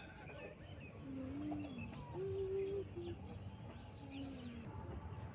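Chickens calling: three drawn-out, low-pitched calls, about a second, two seconds and four seconds in, with faint short high chirps around them.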